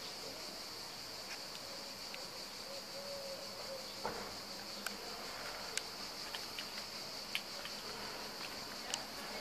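A steady high-pitched insect drone, with scattered faint clicks over it.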